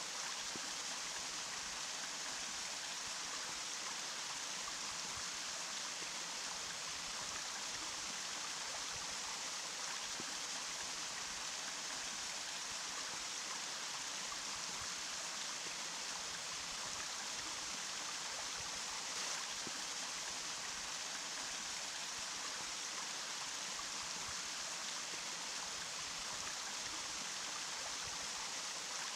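Running water: a steady, even rush, bright and hissy with little low rumble.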